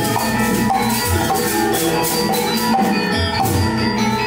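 Gamelan music accompanying a Sundanese mask dance: struck metal gongs and metallophones over a fast patter and deep hand-drum strokes.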